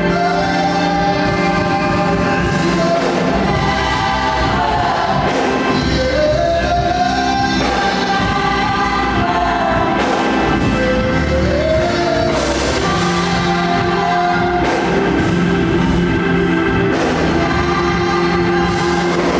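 Gospel choir singing a worship song over steady held chords from the accompanying band.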